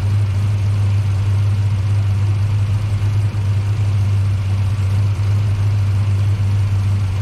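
Fuel-injected Chevrolet ZZ454 big-block V8 idling steadily on its first start-up after the build.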